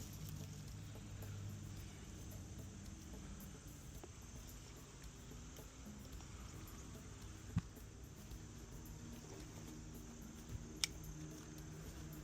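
Insects chirping in a steady, rapid high-pitched pulse, several beats a second, with a faint low hum and a couple of light clicks.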